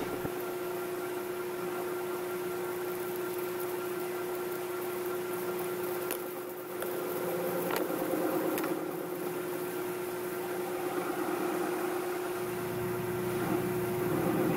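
Metal lathe running with a steady hum while a round carbide insert on a boring-head radius cutter turns a hemispherical end on a metal shaft. The cutting noise grows a little louder for a couple of seconds about eight seconds in.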